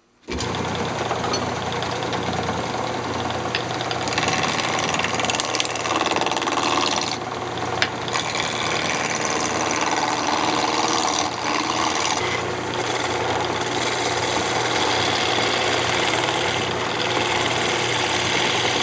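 Wood lathe switching on about half a second in and running steadily, with a turning tool cutting a square redwood blank down to a round cylinder from about four seconds in; the cut stops briefly a few times.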